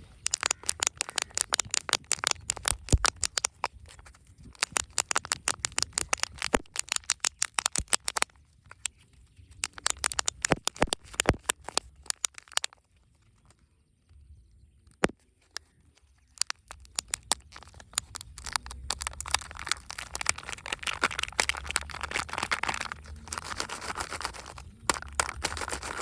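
Surprise eggs and their wrappers being opened: rapid sharp crackles and clicks of crinkling packaging. A short quiet pause comes about halfway through, then a denser, steadier crinkling rustle.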